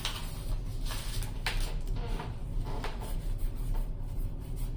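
Trading cards and pack wrappers being handled, with a few short rustles and soft clicks as cards are slid and flipped.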